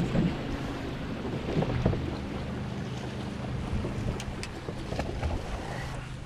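Wind buffeting the microphone and water lapping against a bass boat's hull, under a steady low hum, with a few light knocks from handling in the boat.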